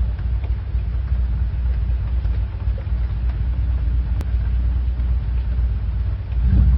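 Steady low rumble of moving air from a fan buffeting the microphone, with a few faint short clicks here and there.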